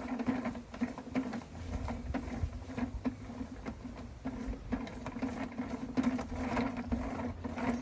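Mini washing machine's small electric motor running, turning the drum with a steady hum and irregular mechanical clicking and rattling.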